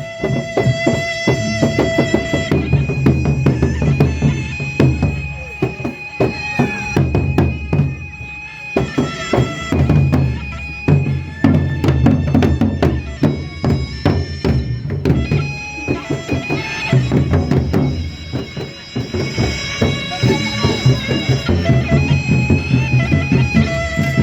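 Traditional Indonesian ensemble playing an opening instrumental piece: dense drumming under a reedy wind instrument that holds long, steady notes, the texture changing every few seconds.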